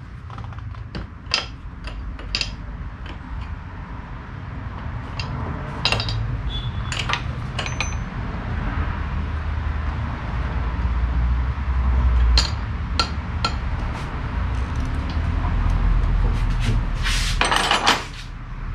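Spanners and metal fittings clinking and knocking as oil-line fittings in the engine bay are worked on and tightened, in scattered irregular clicks over a low rumble, with a brief rushing noise about a second long near the end.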